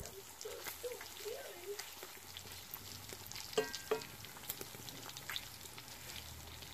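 Bacon sizzling and crackling in hot fat in a cast iron skillet, a steady hiss with many small pops. A little past halfway, two sharp metal clinks ring out in quick succession, metal against the cast iron pan, and a faint wavering whine is heard during the first two seconds.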